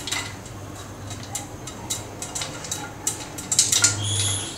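Popcorn kernels popping inside a closed aluminium pressure cooker on a gas burner: scattered, irregular sharp pops through the lid. Near the end the cooker is shaken on the stove grate, a louder rattle of metal and kernels lasting under a second.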